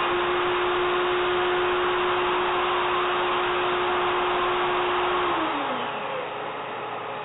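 CNC router's spindle router running at a steady pitch over MDF, then switched off about five seconds in: its pitch falls as it spins down and the sound drops. A quieter steady whooshing noise carries on underneath.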